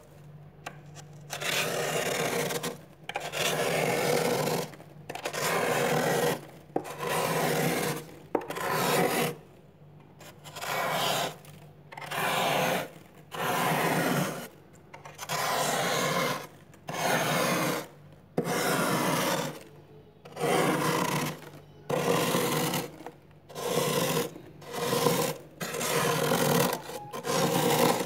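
Metal spoon scraping soft frost off the inside of a freezer in repeated strokes, each about a second long, one every second and a half or so.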